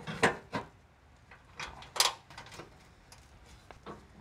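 A few sharp knocks and clatters as the oil filter access cover plate is pushed into place against the Land Cruiser's underbody panel, the loudest about two seconds in.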